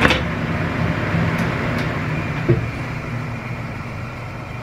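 A large kitchen knife is set down on a wooden cutting board with a sharp click, over a steady low mechanical hum; a dull thump comes about two and a half seconds in.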